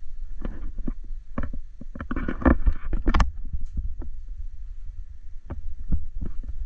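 Low wind rumble buffeting the microphone, with irregular knocks and thumps from the camera being handled and moved, busiest about two to three seconds in.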